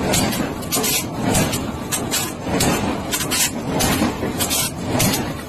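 Loud, rough forge-shop noise, with sharp strokes two or three times a second at uneven spacing.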